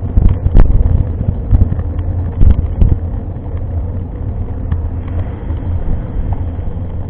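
Mountain bike riding over a rough trail: a low rumble of wind buffeting the microphone and the bike shaking, with sharp knocks about half a second in and again around two and a half to three seconds.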